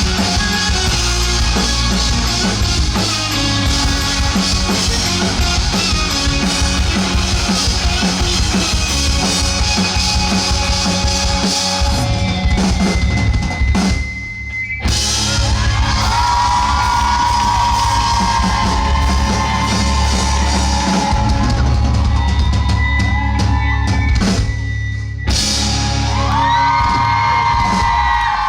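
Rock band playing live, loud and full: drum kit, bass and guitars. The band stops briefly about halfway through and again near the end, and in the second half long held high notes bend and ring over the drums.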